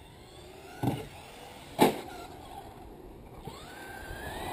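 Two sharp knocks about a second apart, the second louder, then a Traxxas RC truck's motor whining higher as it speeds up near the end.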